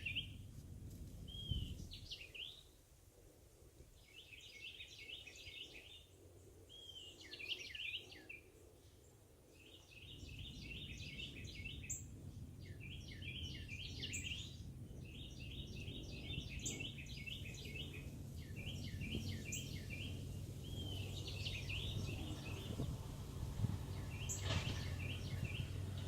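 A songbird singing short phrases of quick chirping notes, repeated over and over with brief pauses between them. A low rumble runs underneath from about ten seconds in.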